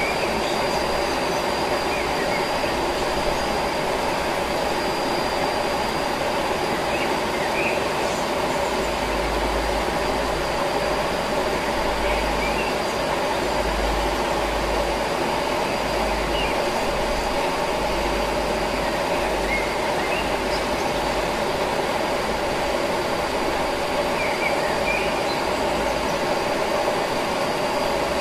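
Steady rushing of a jungle stream over rocks, with a constant high insect whine and a few short bird chirps now and then.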